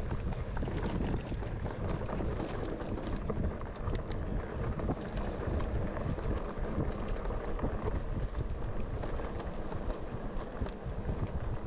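Mountain bike riding fast down a dirt forest trail: wind buffeting the microphone over a steady rumble of tyres on the ground, with the bike rattling and clicking over bumps.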